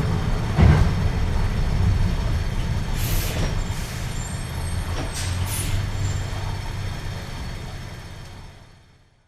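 Heavy vehicle engine rumbling steadily, with short hisses of air about three and five and a half seconds in, fading out near the end.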